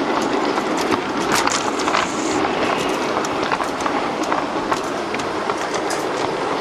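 Model train running steadily along its track: a continuous rumble of wheels and motor with frequent small clicks as the wheels roll over the rails.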